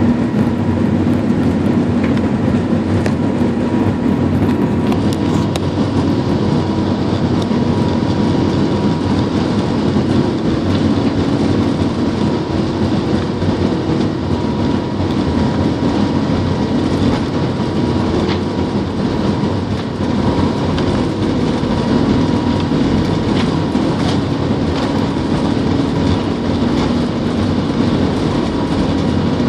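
Cabin noise inside an Airbus A380 taxiing on the ground. It is a steady rumble and hum from its Rolls-Royce Trent 900 engines and airframe, with a faint constant whine and a few light knocks from the wheels over the taxiway.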